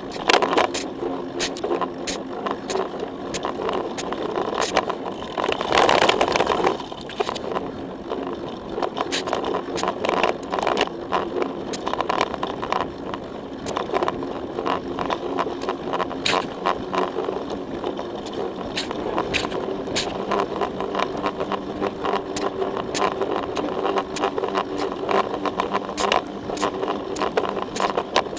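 Giant Trance X0 full-suspension mountain bike riding a dirt single-track trail, heard through a camera mounted on the bike: continual rattling and knocking as it goes over bumps, with tyre noise on the dirt, and a louder rush about six seconds in.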